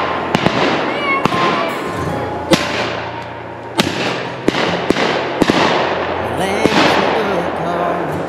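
Duck hunters' shotguns firing a string of shots, some in quick succession, each with an echoing tail.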